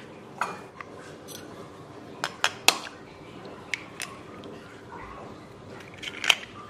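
A metal spoon tapping and cracking an eggshell over a glass bowl: several sharp clicks and clinks, three in quick succession a little after two seconds in and another near the end.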